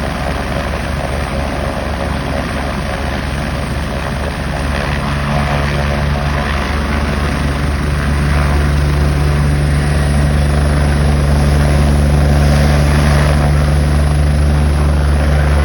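Helicopter turbine engine and rotor running, growing louder about five seconds in, with a high turbine whine that slowly rises in pitch.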